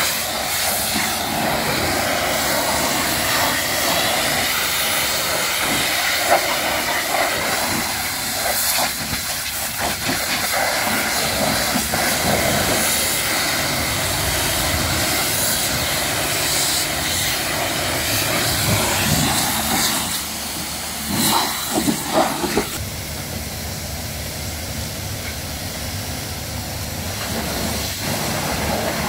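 High-pressure washer jet spraying water against the steel rear of a truck trailer: a steady, loud hiss of spray. About two-thirds of the way through there are a few knocks, and the sound then runs somewhat quieter.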